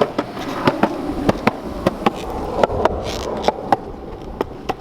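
Skateboard wheels rolling on a concrete sidewalk: a steady rumble, with sharp clacks several times a second as the wheels cross the cracks and joints.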